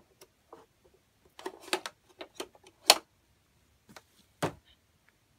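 Hard plastic toy pieces clicking and knocking as a toy takoyaki plate is pushed into the slot of a plastic toy restaurant counter: a run of light clacks, a sharp click about three seconds in and another about a second and a half later.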